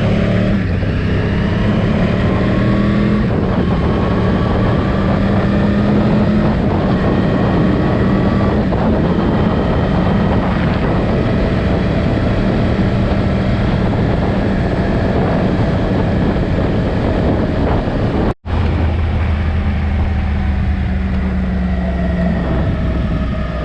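Yamaha R1 inline-four engine running on the move during its break-in period, its pitch rising and falling gently with speed, under heavy wind noise. The sound cuts out for an instant about eighteen seconds in.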